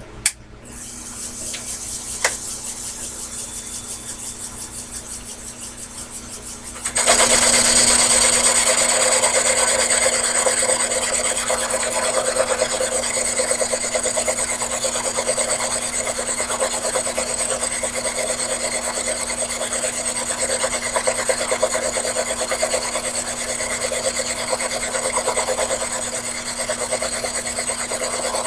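Sherline mini lathe running on power feed, its cutting tool scraping along a workpiece turned between centers that is not yet fully round, over a steady motor hum. A sharp click comes just after the start, and about seven seconds in the rasping cut becomes much louder and stays so.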